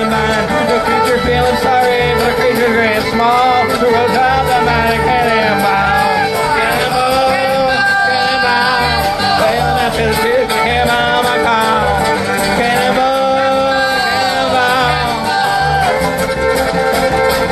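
Live string band playing an instrumental break: a fiddle leads the melody over strummed acoustic guitar and mandolin, with a steady low beat underneath.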